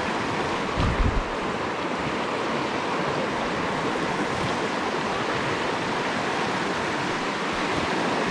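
Steady rushing of a small river rapids running high, with a brief low bump about a second in.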